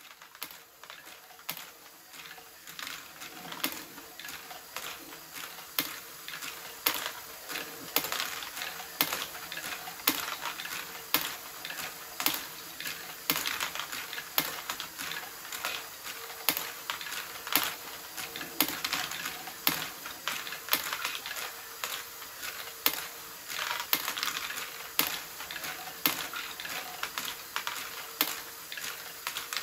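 LEGO Technic Great Ball Contraption module running: plastic balls clicking and clattering as its motor-driven stepping mechanisms lift them, several sharp clicks a second over a faint steady hum from the motor and gearing. The sound fades in over the first couple of seconds.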